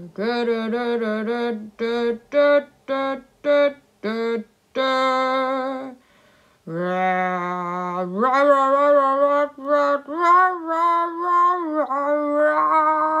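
A voice singing a wordless tune: a run of short, separate notes, then a longer phrase of held notes that step up in pitch and waver.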